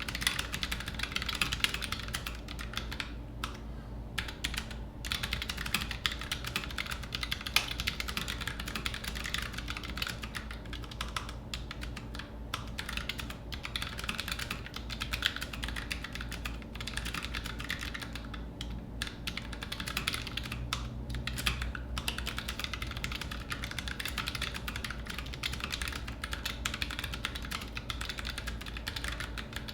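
Continuous fast typing on a Keychron K3 version 2 low-profile wireless mechanical keyboard with brown optical switches: a dense run of light key clicks with a few brief pauses.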